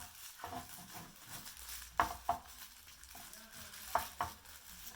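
Packaging crinkling and rustling as a newly unboxed wireless charger is handled, with a few sharp clicks and taps, two pairs about two seconds apart.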